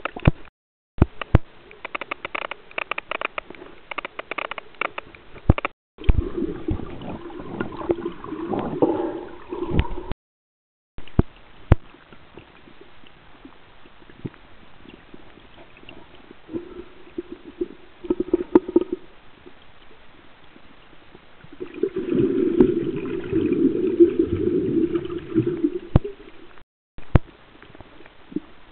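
Muffled underwater water noise through a camera housing: gurgling and sloshing that swells twice into louder surges, with scattered sharp clicks, and several sudden brief cuts to silence.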